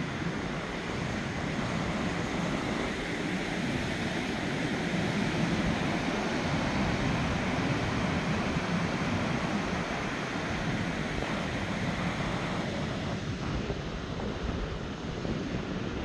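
Ocean surf washing onto a sandy beach, a steady rushing noise, with wind buffeting the microphone in uneven low rumbles.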